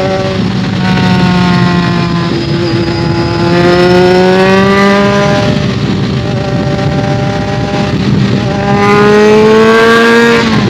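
BMW K1200S transverse inline-four running through a Delkevic aftermarket exhaust while riding. The engine note climbs under acceleration, eases a little midway, then climbs again and drops sharply near the end as the revs fall, heard muffled from a phone in the rider's pocket.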